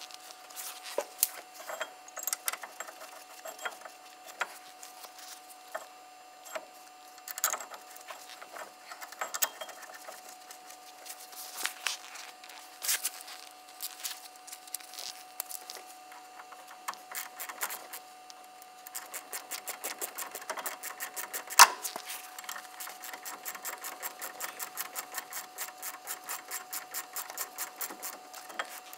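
Metal parts of the brake caliper clinking and knocking as they are handled and fitted. From about two-thirds of the way in, a fast, even clicking of a ratchet wrench tightening the caliper bolts, with one sharp knock partway through.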